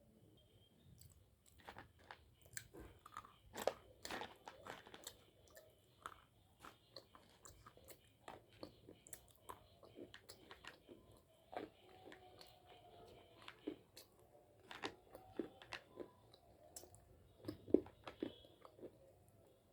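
Close-miked chewing of white khadi slate-chalk: a low, irregular run of sharp crisp crunches as the brittle chalk is bitten and ground between the teeth.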